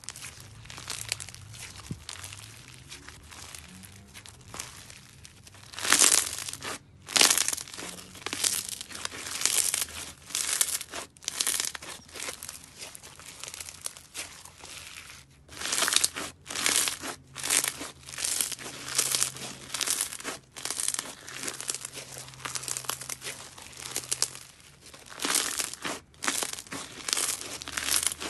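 Crunchy yellow glitter slime being stretched and squeezed by hand, crackling and crinkling. The sound is softer at first, then from about six seconds in comes a long run of quick crackly bursts.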